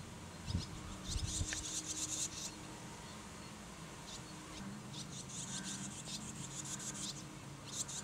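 Fledgling barn swallows twittering in three bouts of rapid, high chirps. A couple of low thumps sound in the first second and a half.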